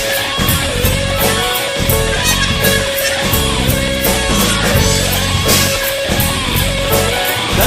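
Rock music instrumental passage: electric guitar over a bass line and a steady drum beat, with no vocals.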